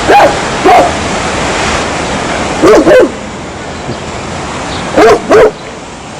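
A dog barking: six short, loud barks in three clusters, one right at the start with another a little later, a quick double bark about three seconds in, and another double bark about five seconds in, over a steady background hiss.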